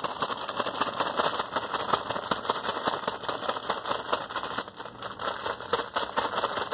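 A bag of chips being shaken hard to coat them in seasoning: the chips rattle against each other and the bag crinkles in a fast, continuous clatter.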